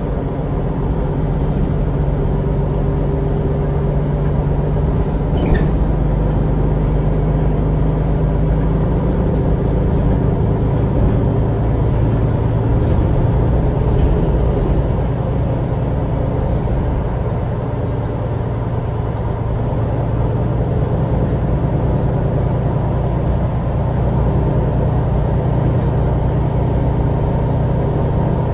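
Inside a MAN Lion's City G articulated bus under way: a steady low engine and drivetrain hum with road noise. The engine note drops about nine seconds in and rises again near the end. One short click comes about five seconds in.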